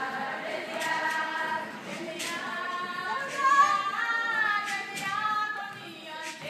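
A group of female voices singing together in unison, with a few sharp percussive hits scattered through it.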